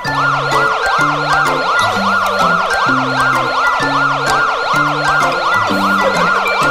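A fast yelping siren, its pitch sweeping up and down about three times a second without a break, over background music with a bass line.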